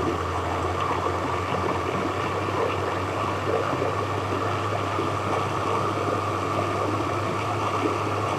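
Countertop electric blender running steadily at full speed, its motor humming evenly as it liquidises softened boiled peaches with water into juice.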